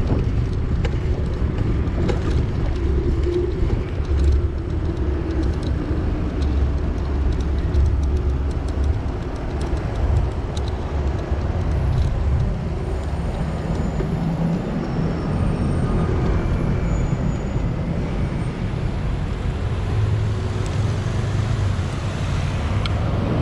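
Steady low rumble of a moving vehicle, with a few faint clicks and rattles.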